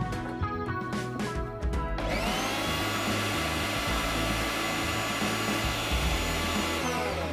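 Electric mixer grinder with a small stainless-steel jar spinning up about two seconds in with a rising whine, running steadily at full speed grinding a puree, then winding down near the end. Background music plays underneath.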